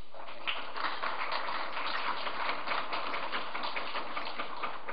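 Audience applauding: many hands clapping at once in a dense, even patter that fills in about half a second in.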